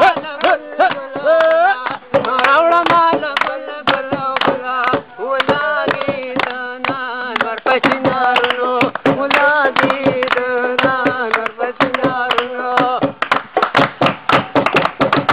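A man singing a folk song, with other men keeping time by clapping their hands. Near the end the singing drops back and the clapping becomes faster and denser.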